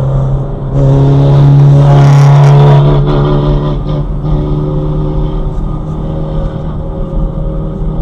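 Car engine and road noise: a steady engine hum that swells louder for about two seconds, a second in, then settles back.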